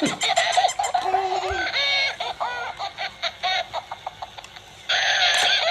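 Battery-operated plush toy dog and toy cat giving electronic barks and meows: short pitched calls that rise and fall, over the clicking of their walking mechanisms, with a louder call near the end.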